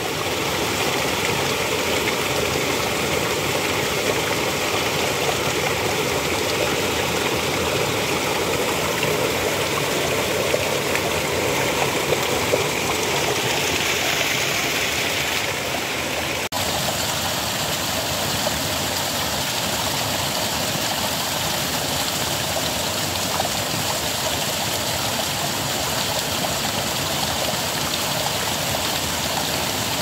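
Water gushing from a pipe outlet and splashing onto stones in a shallow stream, a steady rushing splash. There is a momentary break about halfway through, after which it carries on slightly changed.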